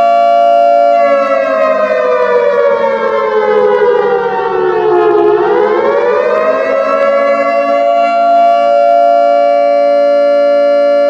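Ramadan siren, the kind sounded to mark sehri and iftar, wailing on a steady pitch. About a second in it sinks in a slow downward glide, then climbs back to its steady pitch around six seconds in and holds there.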